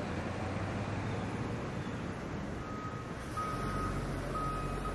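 Fire department rescue truck's engine running as the truck rolls slowly past. About halfway through, a vehicle's reversing alarm starts beeping at one steady pitch, roughly once a second.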